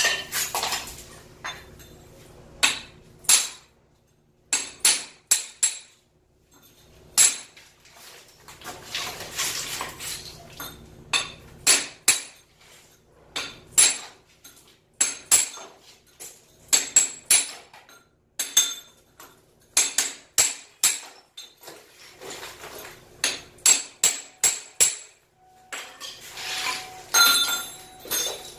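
Hand hammer striking a cold chisel to chip out ceramic floor tile and mortar. Sharp metallic clinks come singly and in quick runs of two to five, with stretches of scraping between them.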